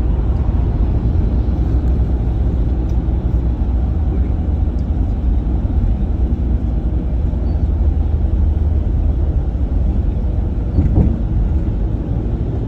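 Steady low road and engine rumble heard from inside a moving vehicle, with a brief louder sound near the end.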